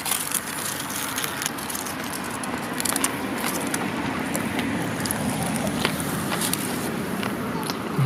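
Close, crunchy chewing of a grilled rice ball whose rice still has a hard, undercooked core: many small irregular crunches. The cooks put the hardness down to the rice being soaked too briefly before cooking.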